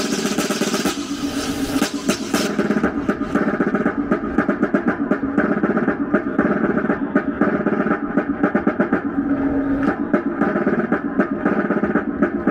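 Snare drums playing continuous rolls and fast beats, with steady tones sounding beneath them.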